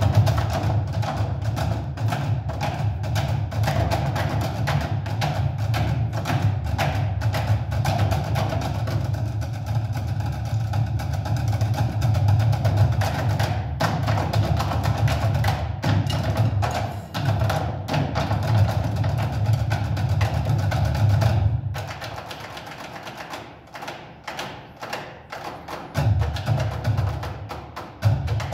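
Percussion ensemble drumming on blue plastic barrels with sticks: a fast, busy rhythm of sharp strikes over a deep booming tone. About three-quarters of the way through the deep part drops out and the strikes go thinner and quieter, and the deep part comes back near the end.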